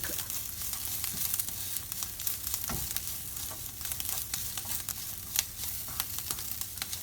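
A spiced masala of ground spices, gram flour and chopped coriander and mint sizzling in a pan while it is stirred with a spoon. The spoon scrapes and clicks against the pan throughout, with one louder knock about five seconds in.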